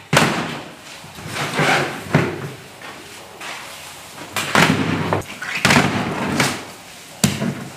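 Wire grill racks and whole suckling pig carcasses being set down and shifted on a stainless steel table: about half a dozen sharp knocks and metallic clatters, with quieter handling noise between them.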